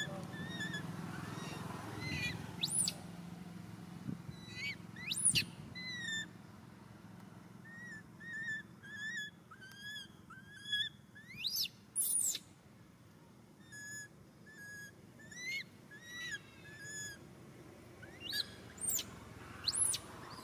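High-pitched animal calls in scattered groups: short chirping notes at a steady pitch, repeated several at a time, mixed with quick squeaks that sweep sharply upward.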